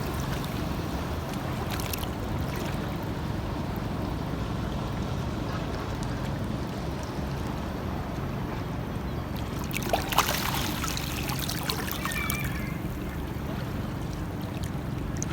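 Sea water lapping and sloshing over a steady low rumble of wind and water, with a louder splash about ten seconds in and a few smaller splashes after it.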